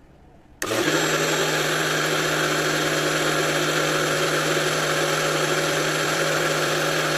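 Electric kitchen blender switched on about half a second in, running at a steady speed as it blends milk with chopped apple, ice and sugar into a milkshake; it cuts off suddenly near the end.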